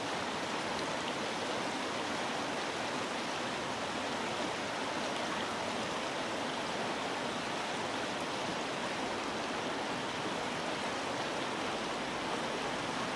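Steady rushing of stream water flowing over rocks.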